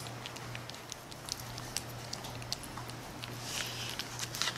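A four-week-old French bulldog puppy smacking and lapping at wet puppy mush from a spoon: a run of small, irregular wet mouth clicks, busier near the end, over a steady low hum.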